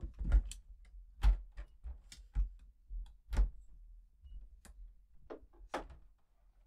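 Irregular clicks and knocks of things being handled on a table, with four louder thuds about a second apart in the first few seconds.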